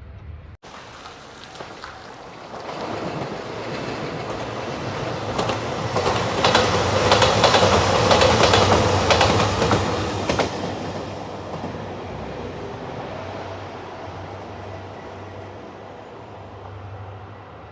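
A Nanpu limited express diesel train passing close by on the rails. It builds up, is loudest for a few seconds in the middle with a rapid clickety-clack of wheels over rail joints, then fades as it moves away.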